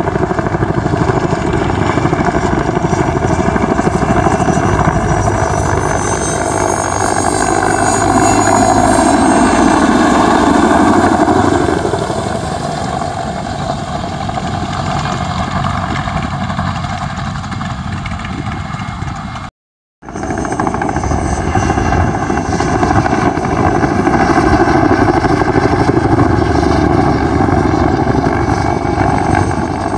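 PZL Mi-2 helicopter in flight: its twin turboshaft engines whine and the rotor runs steadily, loudest about eight to eleven seconds in. The sound drops out completely for about half a second near the twenty-second mark.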